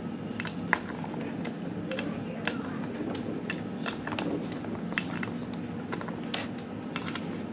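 Scattered light clicks and ticks of bolts being turned by hand into an ATI Super Damper's pulley ring, with metal tapping on metal at irregular intervals over a steady room hum.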